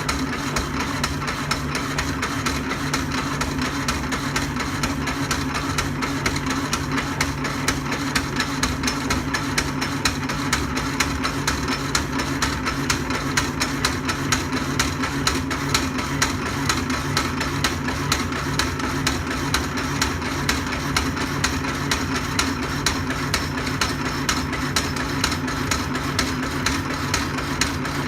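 Vintage Jefferson power hacksaw cutting steel tube: its electric motor hums steadily while the blade reciprocates, with a regular knock repeating on every stroke.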